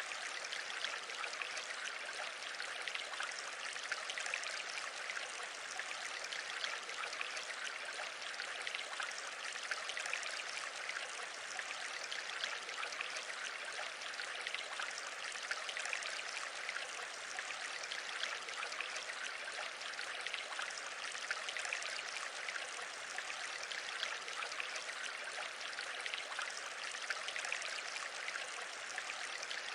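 A steady, even rushing noise with a fine crackle and no change in level, of the kind made by running water.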